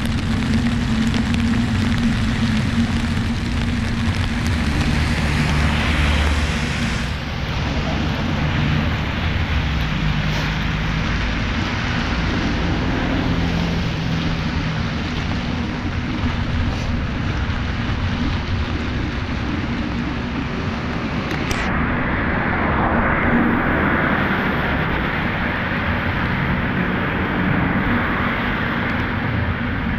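Steady rain and traffic noise on a wet city road: a continuous hiss with a low rumble of passing vehicles.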